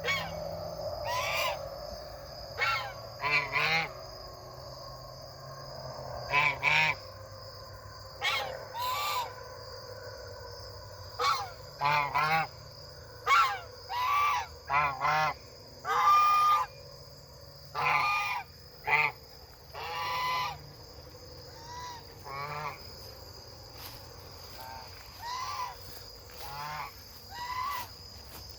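Domestic geese honking again and again, short calls in irregular bursts, sometimes two or three close together.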